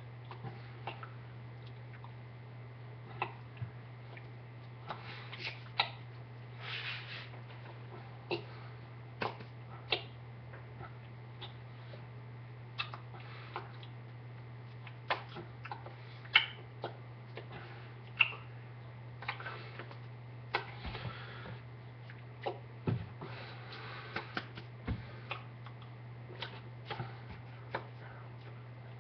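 Scattered soft taps, claps and rustles of a person's hands and sleeves as he signs, irregular and a few each second at most, over a steady low electrical hum.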